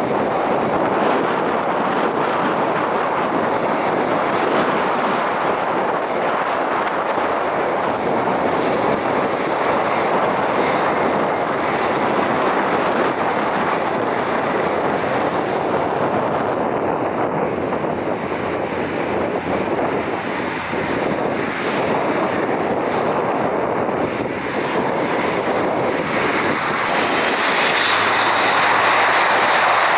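Four-turboprop Airbus A400M taxiing, its engines and propellers making a loud, steady rushing drone. Near the end it grows a little louder and a steady low propeller hum comes in.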